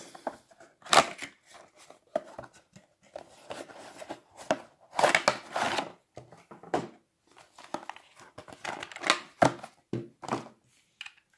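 Cardboard box and plastic blister tray rustling, crinkling and clicking in the hands as a die-cast toy van is worked out of its packaging. The noise comes in irregular handling bursts, the loudest about a second in, around five seconds in and around nine seconds in, and dies away near the end.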